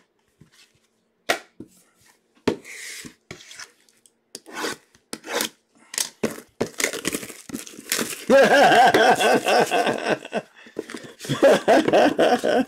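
Cardboard trading-card boxes and cards being handled and set down on a wooden table: scattered taps, knocks and brief rubbing. From about eight seconds in, a person's voice, louder than the handling, comes in two stretches with a short break between.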